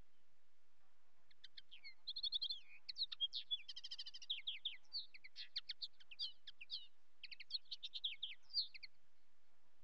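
A bird singing: a long run of quick, varied high chirps and short trills that starts about a second in and stops near the end.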